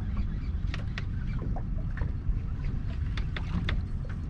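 Steady low rumble of wind and water around a small fishing boat, with a few short, sharp clicks and taps about a second in and again near the end, while an angler fights a fish on a bent rod.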